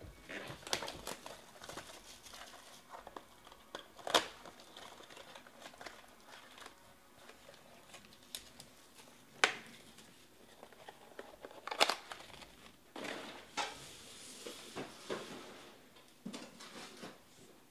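Plastic wrapping crinkling and tearing as trading card packs are pulled from their box and handled, with irregular rustling and a few sharp snaps, the loudest about four, nine and twelve seconds in.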